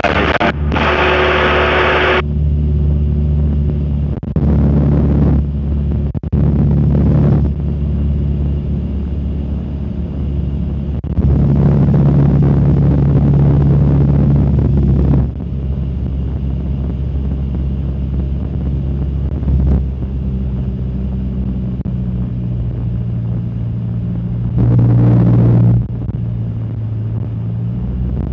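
A Cessna 152's four-cylinder Lycoming O-235 engine and propeller droning at a steady pitch in cruise flight, heard from inside the cockpit. A louder rushing hiss comes and goes several times over it, the longest stretch lasting about four seconds.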